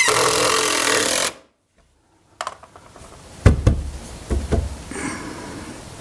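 Cordless drill driving a screw into a 2x4, running steadily and stopping abruptly just over a second in. After a short silent gap, a few sharp knocks on wood.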